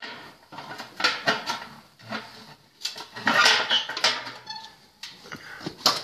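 Irregular clattering and scraping of a metal strainer against a pot, with fried pork cracklings rustling on paper, in uneven bursts. A brief squeak comes about four and a half seconds in.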